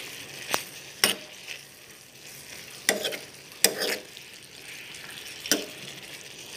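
Diced vegetables, mushrooms and tofu sizzling in a frying pan while a spatula stirs them. The spatula scrapes and knocks sharply against the pan every second or so.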